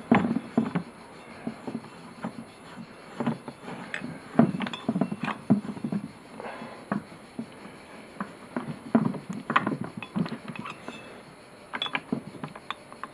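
Irregular metal clicks, knocks and rattles of a masonry pilot drill bit being fitted into a diamond core bit on a DeWalt DW580EK core drill, with the drill switched off.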